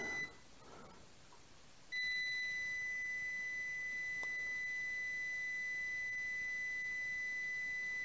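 Klein Tools digital multimeter's continuity beeper sounding a steady high beep. It cuts out just after the start and comes back about two seconds in, holding while the probes rest on the heater-wire pins of a freeze dryer's thermocouple vacuum gauge. The meter reads about 1.4 to 1.6 ohms: there is continuity and no open in the heater wire.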